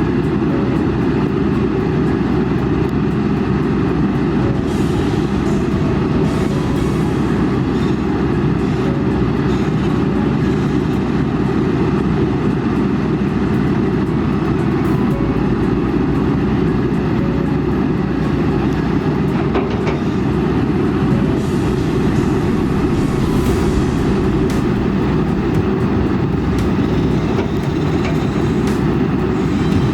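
Kobelco SK200 hydraulic excavator's diesel engine running steadily under load, with a few brief knocks scattered through.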